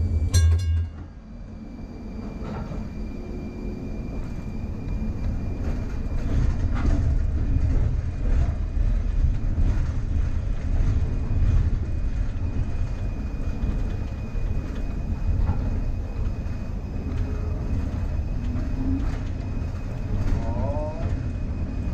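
Air-electric PCC streetcar running along its tracks, heard from the cab: a steady low rumble of motors and wheels with rail clicks. A short ringing tone sounds right at the start, and the wheels squeal briefly on a curve near the end.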